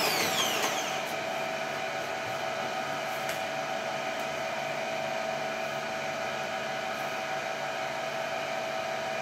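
Electric grout injection pump running steadily, pumping leak-sealing resin through the hose into packers along a crack in a concrete water tank. Its whine falls in pitch in the first second, then holds steady.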